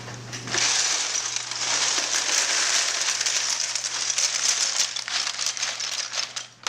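Ice cubes being poured into a container for an ice bath: a dense, continuous rattling crackle of many small clicks that starts about half a second in and stops just before the end.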